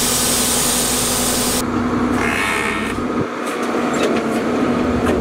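Flatbed tow truck running with a steady hum, under a loud hiss that stops abruptly about a second and a half in; a few light knocks and rattles follow near the end.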